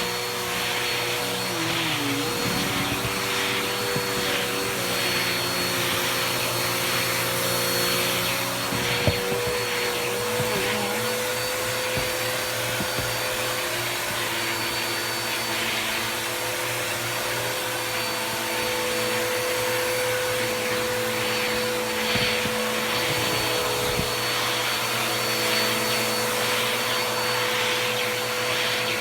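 Bissell vacuum cleaner running with a brush tool worked over bed sheets to lift hair. Its motor hum and high whine stay steady, with a swishing that swells and fades about once a second as each stroke is drawn. The hum sags briefly twice, and there is one sharp knock partway through.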